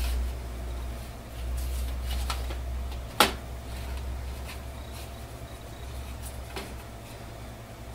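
Plastic clicks and light knocks from the removed paper cassette of a Canon MAXIFY MB2020 inkjet printer being handled and turned over, with one sharp click about three seconds in, over a low hum.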